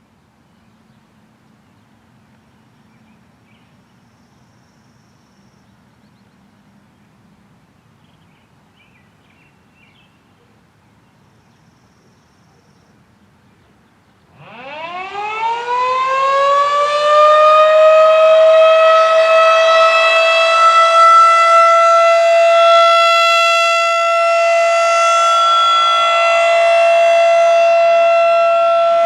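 Quiet outdoor ambience, then about halfway in a Federal Signal 2001-SRNB single-tone outdoor warning siren starts, sounding its monthly test. It winds up with a steeply rising pitch over a few seconds and settles into a loud, steady tone with many overtones.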